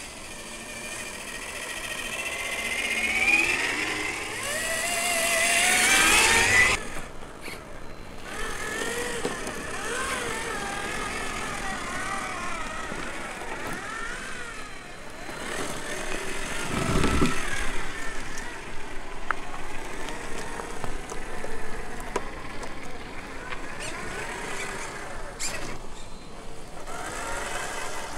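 Whine of Traxxas TRX-4 RC trucks' electric motors and geared drivetrains on a dirt trail, rising and falling in pitch with the throttle. It climbs to a peak about six seconds in, cuts off abruptly, and resumes wavering, with a brief heavier low rumble around the middle.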